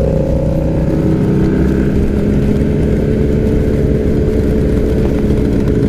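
Motorcycle engine running loudly and steadily, with a slight change in pitch about a second in.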